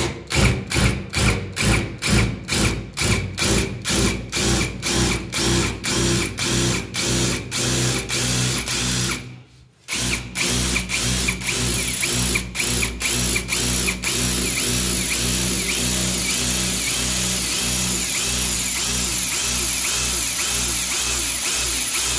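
Cordless drill boring into a pin-tumbler lock cylinder. It runs in short, even pulses about two a second, stops briefly about halfway, then runs steadily with a thin high whine as the bit eats through the cylinder's spring-loaded pins.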